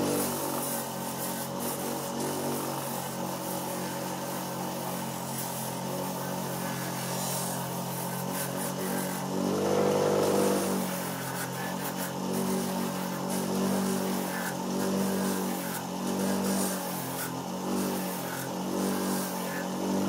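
Electric bench grinder running with a steady low hum while the soft sole of a cushioned running shoe is pressed against the wheel and ground flat. The grinding swells louder about ten seconds in, then rises and falls in shorter surges as the pressure changes.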